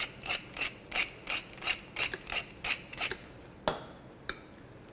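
Wooden pepper mill twisted by hand, grinding peppercorns in a steady rhythm of about three strokes a second. The grinding stops a little past three seconds in, followed by a single sharp knock and a lighter click.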